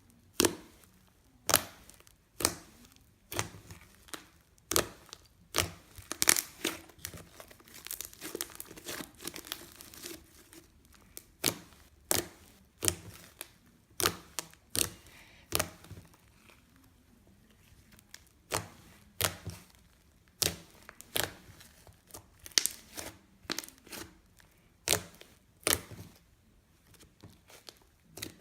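Slime being squeezed and pressed by hand, giving sharp pops and clicks about once a second. There is a stretch of denser crackling about a third of the way in.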